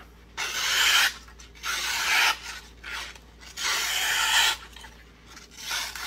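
A multitool's sheep's foot knife blade slicing through a sheet of printer paper in three long hissing strokes and a shorter one near the end. This is a paper-cutting test of the blade's untouched factory edge.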